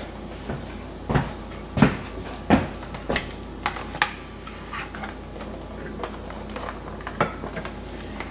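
A string of irregular knocks and light clatters, thickest in the first four seconds, over a steady low hum.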